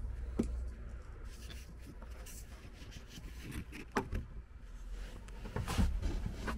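Quiet handling of wooden cabinetry: a few light knocks and rubs as hands press on a cupboard door and grip a step panel, the sharpest knock about four seconds in, over a faint low rumble.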